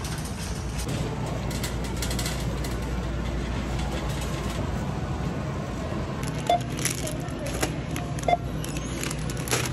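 Shopping cart rolling with a steady low rumble over a store floor amid supermarket background noise. Then, at a self-checkout, two short scanner beeps about six and eight seconds in, with the crinkle of a plastic salad bag being handled.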